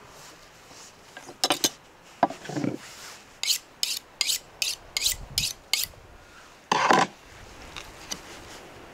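Rasping scrapes: a couple of sharp knocks, then seven quick, even strokes at about three a second, and one louder, longer scrape near the end.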